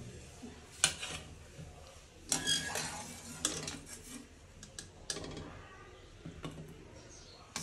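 Steel wire strainer clinking and scraping against a metal pot and a steel plate as boiled potato pieces are scooped out and tipped onto the plate: a run of separate clinks and short clatters, the sharpest about a second in.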